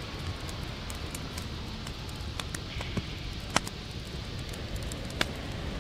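Wood fire crackling, with many small sharp pops and two louder ones in the second half, over a low rumble of wind on the microphone.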